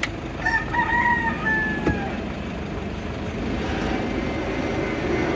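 A rooster crowing once, one long call that sags in pitch at the end, over steady background noise; a single light knock comes near the end of the crow.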